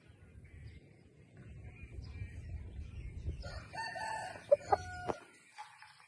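Rooster crowing once: a crow of about a second and a half that starts some three and a half seconds in and cuts off abruptly, over a low rumble.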